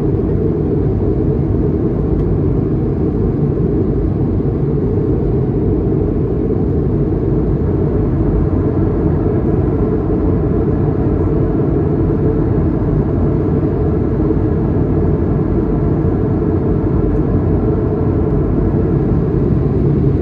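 Steady low drone inside the cabin of an Airbus A220-300, from its Pratt & Whitney geared turbofan engines and the airflow around the fuselage. It holds an even level throughout.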